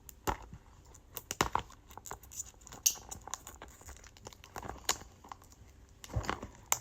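Toy packaging being handled and opened by hand: scattered clicks, scrapes and crinkles, with short pauses between them.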